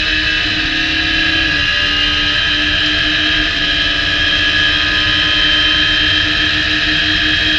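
Radical SR3 race car engine at full throttle, holding high revs with brief breaks as it shifts up through the gears, under steady wind rush in the open cockpit.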